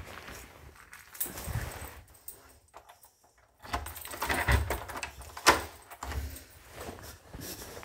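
Keys jangling and a door being handled, with scattered knocks and a sharp click about five and a half seconds in.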